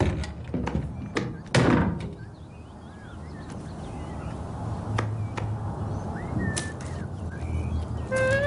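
Washing machine: a few sharp knocks and thuds, then a low steady hum as it runs, with faint short chirps over it.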